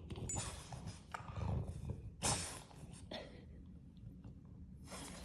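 Two puppies tussling over a toy: irregular scuffling and play noises, with the loudest sharp burst about two seconds in, then quieter.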